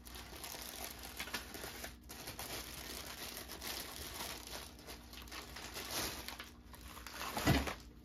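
Plastic packaging bag crinkling and rustling as a ceiling fan blade iron is pulled out of it, with a dull thump near the end.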